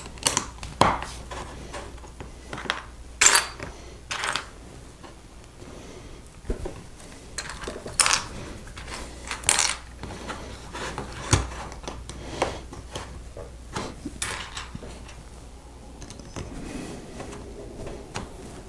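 LEGO plastic pieces being handled and pressed together by hand, with irregular clicks, clatters and short rustles.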